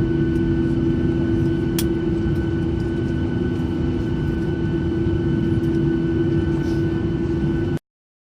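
Steady jet airliner cabin noise after landing: a low engine drone with constant whining tones, one sharp click about two seconds in. The sound cuts off suddenly near the end.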